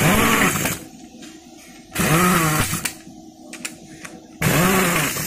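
Corded electric power tool driving a socket on the bolts of a scooter's transmission case, run in three short bursts, each spinning up and winding down. The bolts are being tightened as the clutch side is put back together.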